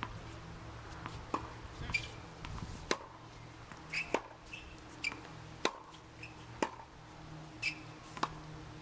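Tennis balls struck by rackets and bouncing on a hard court: a string of sharp pops, roughly one every half second to a second, some with a short ringing ping.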